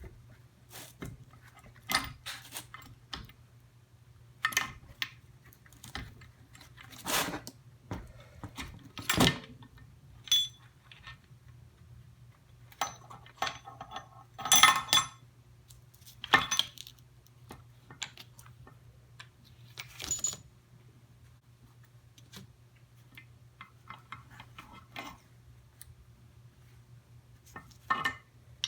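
Steel transmission gears and shafts clinking and knocking against each other and the split crankcase as they are worked out of a Suzuki RM125 two-stroke engine. The clinks are scattered and irregular, some with a brief metallic ring.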